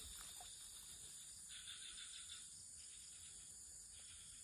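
Faint insect chorus: a steady high-pitched drone, joined for about two seconds from about a second and a half in by a lower buzzing call.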